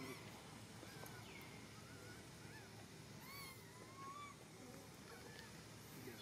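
Faint, high coo calls of an infant long-tailed macaque: a string of short whimpering cries, each rising and falling in pitch.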